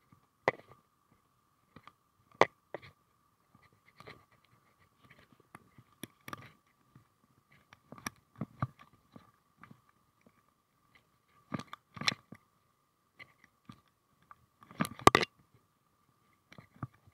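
Handling noise on a body-worn camera: irregular knocks, rubs and crunches of a jacket sleeve and gear brushing the camera and of steps in grass, loudest in a cluster near the end, over a faint steady high whine.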